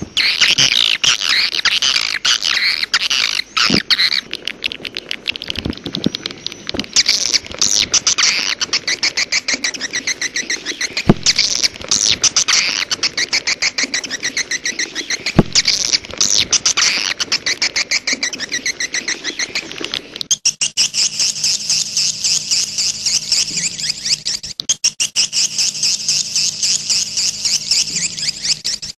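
Swiftlet calls: rapid, dense twittering chirps and clicks, the kind of call sound played to lure wild swiftlets in to nest. About two-thirds of the way through, the chirping changes to a steadier, denser twitter over a low hum.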